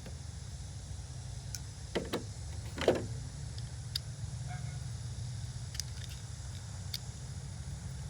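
Small metal parts and hand tools being handled, with a few short clicks and a couple of louder knocks about two to three seconds in, over a steady low hum.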